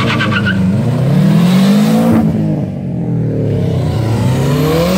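A car accelerating hard past, its engine revving up, dropping briefly as it shifts about two seconds in, then revving up again.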